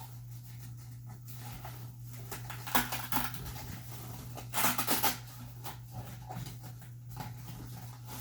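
Handling of a playpen's fabric and frame during assembly: two short scratchy bursts of noise, about three and five seconds in, over a steady low hum.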